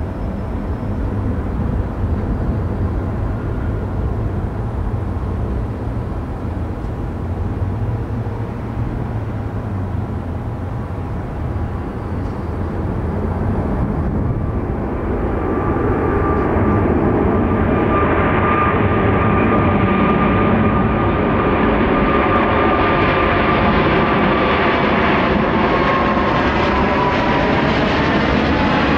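Jet airliner's engines at takeoff power: a steady low rumble that grows louder from about halfway, as a high whine joins in and the aircraft comes close past.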